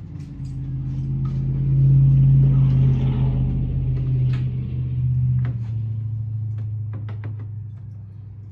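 A low, steady engine-like rumble that builds over about two seconds, holds, then fades away near the end, with a few light metallic clicks over it.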